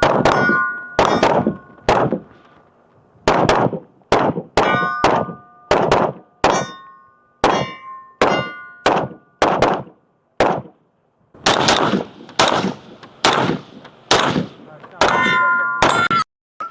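A fast string of gunshots, about two a second, with steel target plates ringing as they are hit. There is a short pause about two seconds in and another around ten seconds in.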